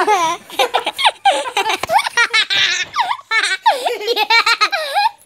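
High-pitched laughter and excited squealing from people, in quick bursts that rise and fall in pitch.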